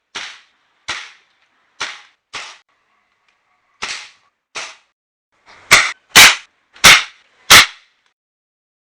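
A quick series of ten sharp gunshot-like bangs, roughly half a second to a second apart; the last four, past the middle, are much louder than the first six.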